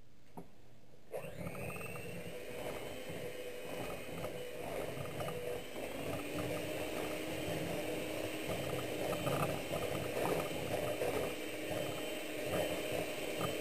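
Black & Decker electric hand mixer switched on about a second in and running steadily, its beaters churning a thick peanut butter and pudding mixture in a metal bowl.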